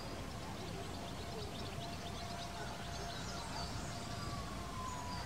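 Outdoor background noise with faint bird chirping, plus a faint drawn-out tone that slides down in pitch near the end.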